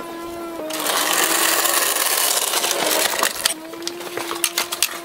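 Casters of a wheeled dolly, loaded with a transmission, rolling over concrete as a loud gritty rumble for about three seconds, then a few knocks and clicks as it stops. A steady droning tone sounds before and after the rolling.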